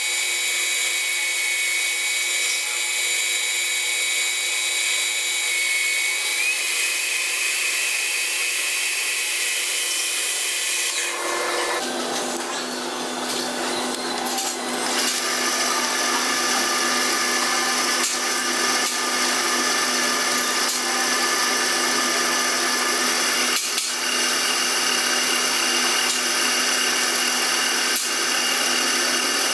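Small metal lathe running with a steady whine as a cutting tool turns a brass bar. The sound breaks off and changes about a third of the way in. The lathe then runs again with a different steady tone while a drill in the tailstock is fed into the end of the spinning bar.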